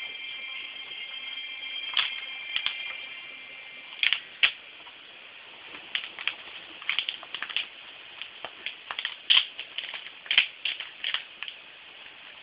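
Irregular light clicks and taps, a dozen or more, coming thicker about halfway through. A few faint, steady high tones fade out within the first three seconds.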